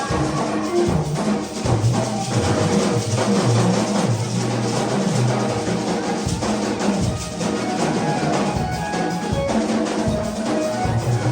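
Band music with drums and a low bass line, playing steadily with no break.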